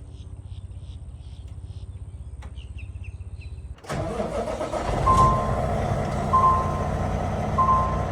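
Heavy diesel engine idling with a fast, even low pulse, then suddenly running louder and harder about four seconds in. A beeper sounds three times, evenly spaced, over the louder running.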